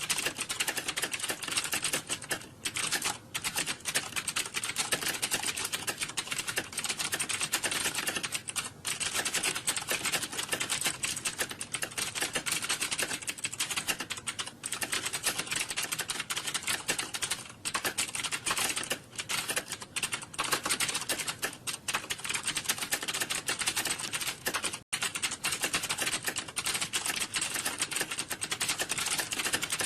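Fast, continuous typing on computer keyboards, with key clicks packed densely and only brief pauses. There is a momentary break about 25 seconds in.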